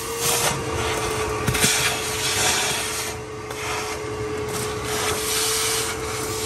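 Shop vacuum running with a steady whine while its nozzle is worked over the cylinder bores of an engine block, sucking up rust and debris, with irregular scraping bursts.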